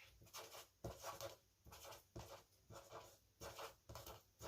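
Felt-tip marker dabbing dots onto paper: a steady run of faint little taps, about three a second.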